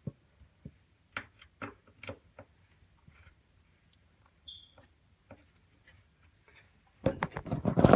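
Scattered light clicks and taps of a screw and screwdriver being worked on a smoke detector's mounting bracket, with a brief high squeak about halfway through. A much louder burst of sound comes in the last second.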